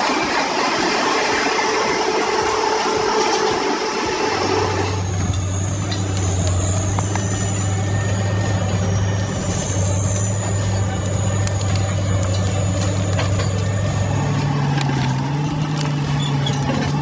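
Heavy machinery at work: a grinding, squealing noise for the first few seconds, then a steady engine drone with a high whine above it, the engine's pitch stepping up near the end.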